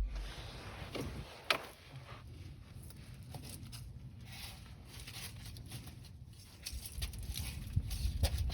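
Quiet handling noises of someone searching for a part: a sharp click about one and a half seconds in, then faint rustling, and a run of small clicks and knocks near the end.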